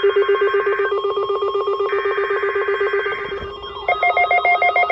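NOAA Weather Radio Required Weekly Test signal: two bursts of the buzzy digital SAME header data, each about a second and a half long, over the rapid electronic beeping of a weather-radio receiver's alarm set off by the signal. A second, higher-pitched beeping alarm starts about four seconds in.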